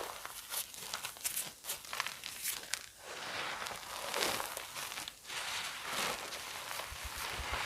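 Reformed chalk crunching and crumbling: a run of sharp crackles over gritty crushing, swelling in surges.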